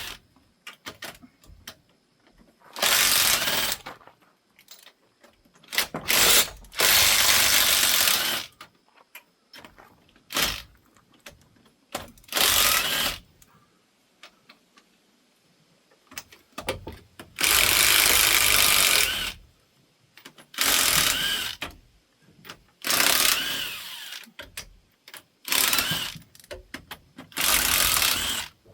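A power tool run in about ten short bursts of one to two seconds each, loosening bolts on a big-block Chevy engine being torn down, with clinks and clicks of hand tools between the bursts.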